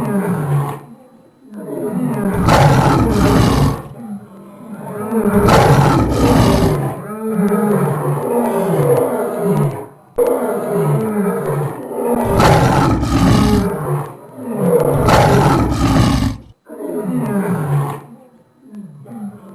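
A run of deep roars from a lion-like beast, about seven in all, one every two to three seconds. Each falls in pitch as it trails off into growling, and the loudest have a harsh, raspy peak.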